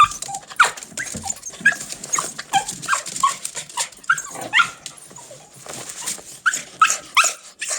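A dog whining and yipping in short, high, sliding cries, one after another with brief gaps, easing off briefly about five seconds in before picking up again.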